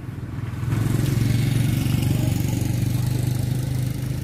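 A small engine running with a steady low hum, swelling about a second in and easing slightly near the end.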